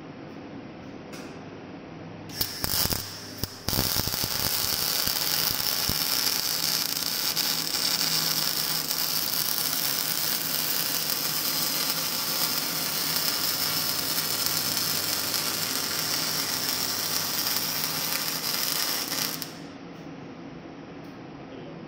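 MIG welding arc crackling as an orbital welder runs a bead around a tube-to-connector joint. It starts with a few short sputters a couple of seconds in, then burns steadily for about fifteen seconds and cuts off suddenly.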